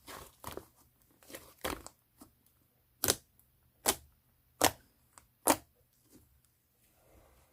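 Pink mixed slime being squished and stretched by hand, giving sharp wet snaps and pops. Small clicks come first, then four loud pops at an even pace in the middle.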